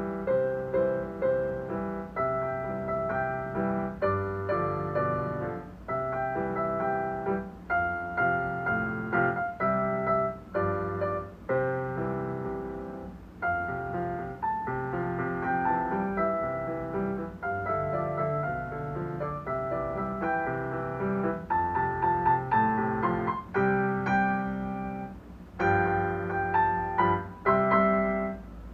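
Solo piano playing a simple children's song melody over a bass accompaniment, in short phrases with brief pauses between them.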